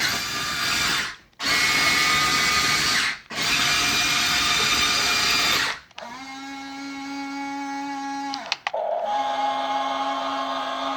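Small electric gear motors of a Huina remote-control excavator whirring in three bursts, each one to two and a half seconds long with short gaps between them. These are followed by a quieter, steady motor hum, broken by a brief click a little past the middle.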